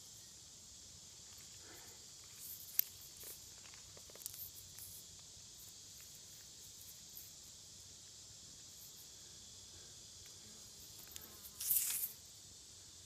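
Steady high-pitched buzz of an insect chorus on a hot summer day, with a few faint clicks and a short louder rustle near the end.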